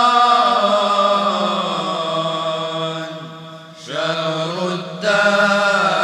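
Voices chanting an Arabic religious nazam, a devotional song. They hold one long note that fades out just past halfway, then start a new phrase.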